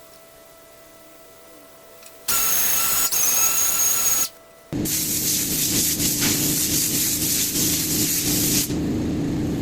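Power tools working walnut wood: after a faint steady hum, a loud tool with a high whine starts abruptly about two seconds in and stops short. After a brief pause, a longer stretch of loud, rough machining noise follows and cuts off near the end.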